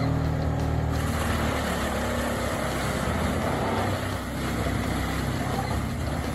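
Heavy diesel engine of a large forestry machine running steadily, with a rushing noise rising over it about a second in.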